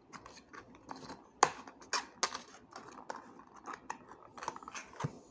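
Small cardboard toy-car box being handled and closed: a run of sharp clicks, taps and short scrapes of the card flaps, the loudest a little over a second in.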